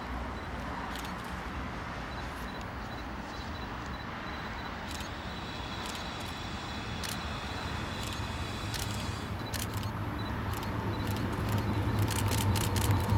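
Diesel locomotive hauling a passenger train on its approach, a low engine rumble that grows steadily louder from about eight seconds in, with scattered sharp clicks near the end.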